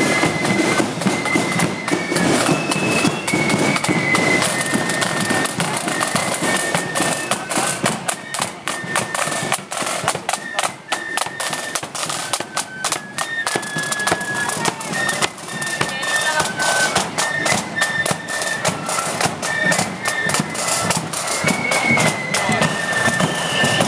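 Marching flute band playing a tune: high flutes carry a stepping melody over a steadily beating bass drum and other drums.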